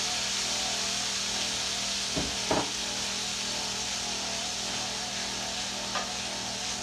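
Vegetables sizzling in oil in a stainless steel frying pan, stirred with a wooden spoon that scrapes across the pan. The spoon knocks against the pan twice a little over two seconds in and once more about six seconds in.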